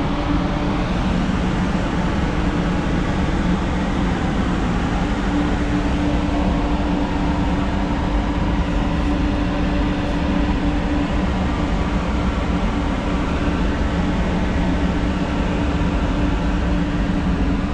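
Paint spray booth ventilation fans running: a steady airy rumble with a constant low hum.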